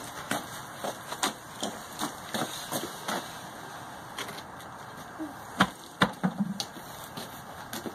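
Scattered light knocks and clicks, with two louder thumps about five and a half and six seconds in, as a car tire on a steel wheel is rolled across dirt and set down.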